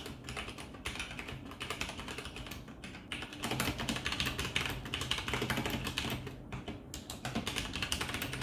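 Fast typing on a mechanical keyboard with unlubed Cherry MX Brown switches and PBT keycaps: a dense run of key clicks and clacks that gets louder about three seconds in.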